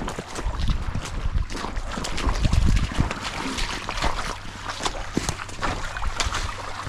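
Footsteps of people walking through the woods, a steady run of crackles and rustles underfoot, with heavy low thumps about two to three seconds in.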